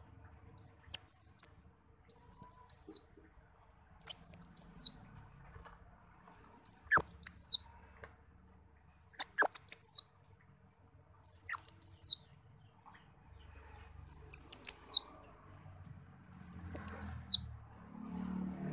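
Sunbird call: a short, high chirping phrase ending in a falling note, repeated eight times at even intervals of two to three seconds, each phrase nearly identical. Faint low rustles and taps come in near the end.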